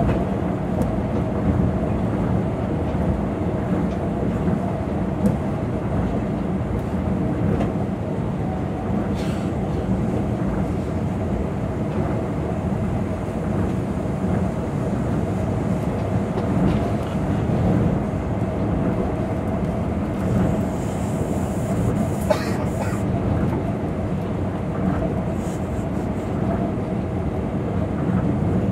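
Tokyo Monorail 2000 series train running, heard from inside the car: a steady rumble of its rubber tyres on the guideway with a constant hum.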